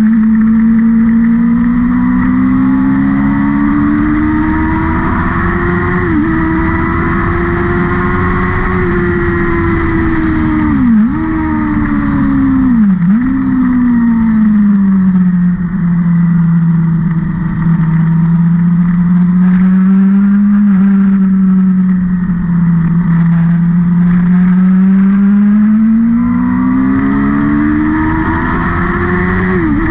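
Engine of a vehicle lapping a race circuit, running hard throughout. Its pitch climbs and sinks slowly as it speeds up and slows down, with short sharp dips in pitch about 6, 11 and 13 seconds in and again near the end.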